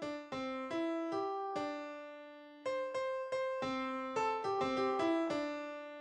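Background music: a solo keyboard, piano-like, plays a simple melody of single struck notes, a few a second, each ringing and fading, with a short pause about two seconds in.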